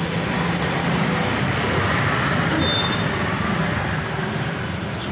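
Road traffic noise: a motor vehicle engine running close by over a steady wash of traffic, swelling a little about halfway through.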